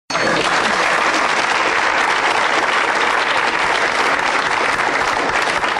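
Audience applause: dense, steady clapping from a crowd that starts abruptly.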